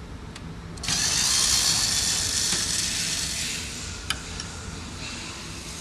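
Power tool running for about three seconds, starting about a second in, as it backs out one of the fasteners that hold a plastic cover at the front of a C5 Corvette. A single sharp click follows a little later.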